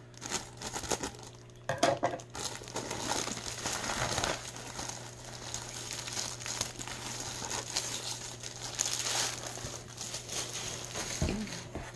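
A clear plastic packaging bag crinkling and rustling as it is snipped open with scissors and pulled apart, with a few sharper crackles as the flexible plastic cutting mats inside are handled.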